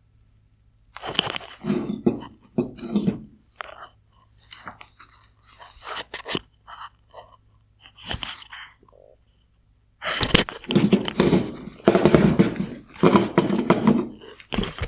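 Headlight projector parts being handled and fitted together: irregular crunching and scraping with short knocks. It comes in two busy stretches, starting about a second in and again at about ten seconds.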